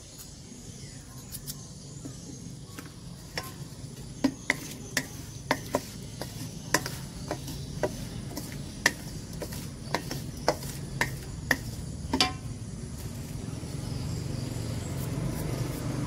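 A knife slicing fresh fruit by hand over a stainless steel bowl: a run of sharp clicks, about two a second, that stops a few seconds before the end. Under it a low engine rumble grows louder near the end as a motorbike approaches.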